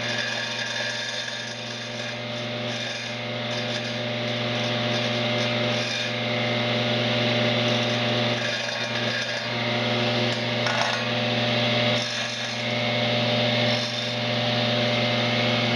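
A power tool running steadily while its blade grinds and rubs along the edge of a tile, trimming a notch cut. The grinding swells and eases several times as the blade is worked along the cut.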